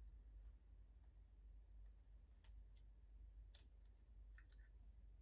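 Faint, sharp clicks of a small screwdriver or scalpel tip and plastic retaining clips as the lower keeper plate is prised off a model locomotive bogie, a handful of them from about halfway in, over a low steady hum.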